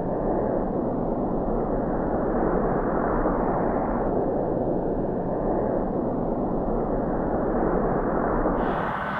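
Low, steady rumbling roar of a Pilatus PC-21's turboprop, muffled with no high end. Near the end it changes abruptly to a brighter, fuller engine sound.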